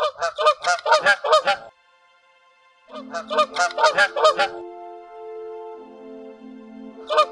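Swan honking in rapid bursts of about seven short calls each: one at the start, another about three seconds in, and a third starting near the end. Soft background music with long held notes enters about three seconds in.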